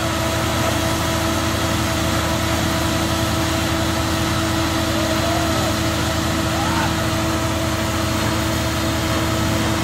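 Truck-mounted water-well drilling rig running steadily while boring a well, a constant mechanical drone with a steady hum.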